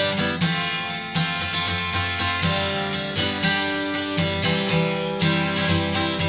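Background music of a strummed acoustic guitar, sharp strokes falling in a steady rhythm.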